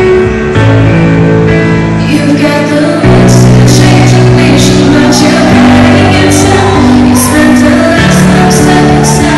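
A woman singing into a hand-held microphone over loud accompaniment with steady bass notes, amplified through a hall's speakers. A beat of regular drum hits comes in about two to three seconds in, and the music gets a little louder.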